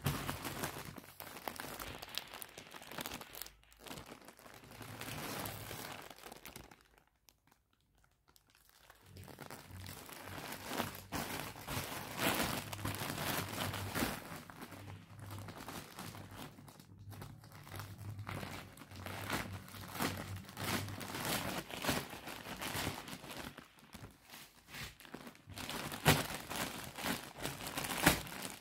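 Plastic courier mailer bags crinkling and rustling as they are handled, turned over and lifted, with a near-quiet pause about a quarter of the way in and sharp crackles near the end.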